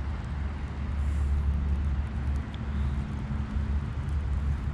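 Steady low rumble of distant road traffic, with a faint hum that comes in about a second in and fades out later.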